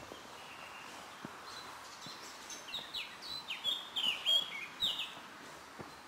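A songbird singing a quick phrase of short, falling chirps, from about one and a half seconds in until about five seconds, loudest near the middle. A steady outdoor hiss lies underneath.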